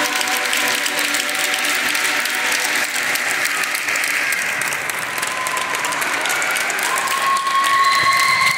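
Audience applauding as the routine's music fades out in the first couple of seconds, with a few long high-pitched calls or whistles from the crowd near the end.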